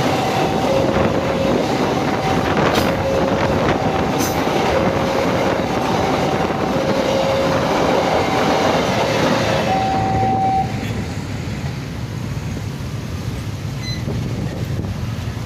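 Passenger train cars rolling past with steady rail noise and wheel clatter, while a level-crossing warning alarm beeps in two alternating tones. The alarm and the train noise both stop about two-thirds of the way in, leaving quieter road traffic.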